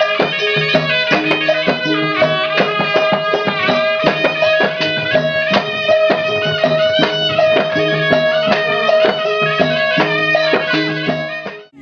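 Traditional folk music of the kind that accompanies a wayang kulit shadow-puppet performance: quick drum strikes under a steady held tone and a wavering melody. It cuts off abruptly near the end.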